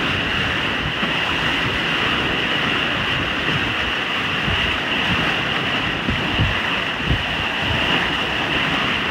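Wind buffeting the microphone over the steady rush of waves and water along the boat's hull in heavy seas, with a few louder gusts in the second half.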